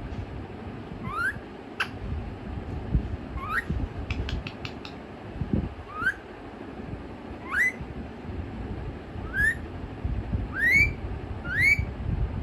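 Pet parrot giving short, upward-sliding whistles, about seven of them, coming faster toward the end.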